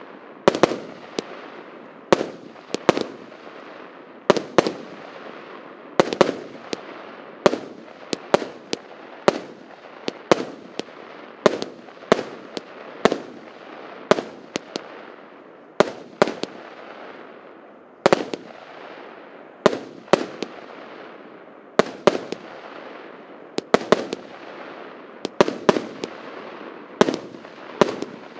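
A 100-shot, 1-inch-calibre consumer fireworks cake (Russkaya Pirotekhnika PC7510) firing shot after shot, with sharp bangs about every second, sometimes in quick pairs. Each bang is trailed by a hiss that dies away.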